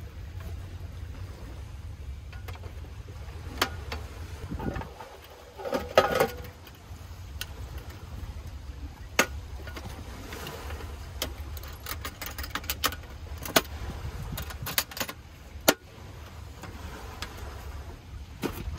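Steel Stanley Classic lunch box being packed and shut: scattered sharp metal clicks and clacks as gear is settled inside, the lid is closed and the latches are snapped down, with a run of clicks in the second half. A low wind rumble on the microphone lies underneath.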